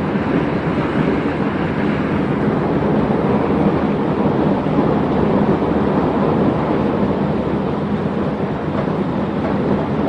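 Chicago CTA Red Line train in motion, heard from inside the car: a steady running noise.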